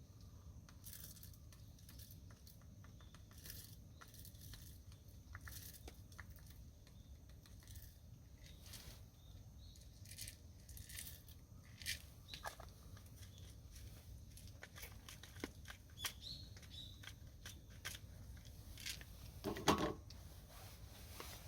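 Wood campfire crackling faintly, with irregular sharp pops and ticks and a louder cluster of pops near the end.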